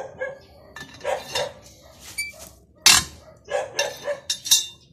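A dog barking in short repeated bursts, mixed with clinks of metal hand tools. There is a sharp metal clank about three seconds in.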